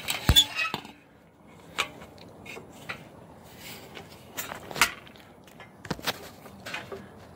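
Irregular knocks and clicks of handling and movement in a workshop: a loud cluster in the first second, including a short ringing metal clank, then scattered single ticks and taps.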